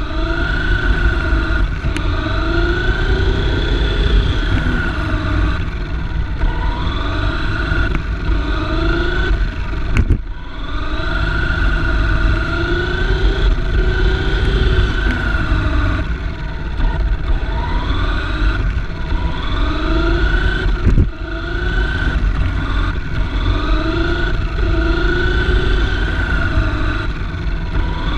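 Electric drive motor of a 1/10-scale autonomous race car whining, its pitch rising and falling again and again as the car speeds up and slows through the laps, over a steady low rumble. Two sharp knocks come along the way.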